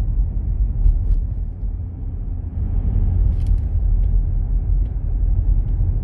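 Steady low rumble of road and engine noise inside a moving car.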